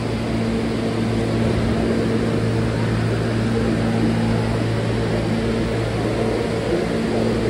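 R160 New York City subway car heard from on board: a steady hum over an even rumbling noise, holding one pitch without rising or falling.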